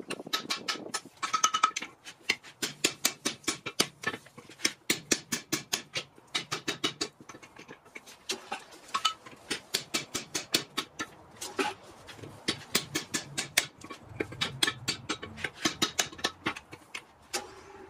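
Hand hammer strikes on a handled punch driven into a hot Atlantic 33 steel billet on an anvil, punching the eye of a rounding hammer. The blows come steadily at about three a second, each a sharp metallic clang with ringing, with a couple of brief pauses.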